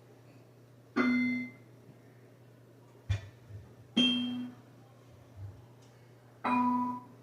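Trombone played with its tuning slide removed, giving three short honks on the same low note, each about half a second long and fading fast, spaced a few seconds apart. A click with a low thud comes about three seconds in.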